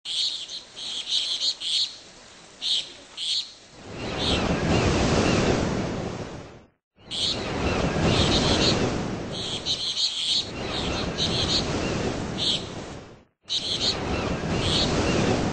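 Ocean waves washing in long swells of noise, with birds chirping over them. The sound cuts out briefly twice.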